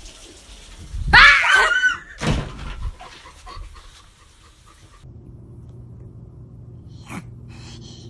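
A cat yowling: one long wavering call about a second in, then a shorter one.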